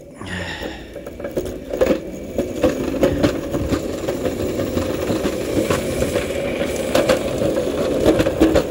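Small go-kart driven by a 24-volt electric motor running on 18-volt Ryobi batteries, picking up over the first second or two and then running steadily, with the kart rattling over concrete and many sharp knocks.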